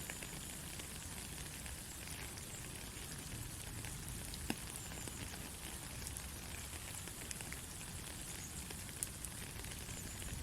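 Soft rain falling steadily, a constant patter of many small drop ticks, with a sharper single drop hit about four and a half seconds in and another near the end.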